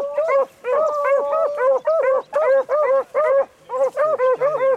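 Beagles baying on a rabbit's trail: quick, repeated barks from several hounds overlapping at different pitches.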